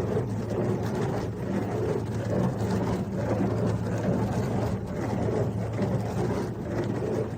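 AIRMSEN mini countertop dishwasher running a wash cycle: a steady motor hum over a rough, churning wash noise.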